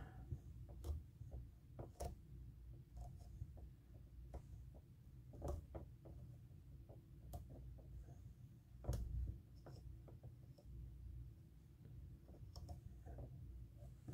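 Faint scratching and scattered light clicks of Nayat hair being picked out and worked by hand on a streamer fly clamped in a tying vise.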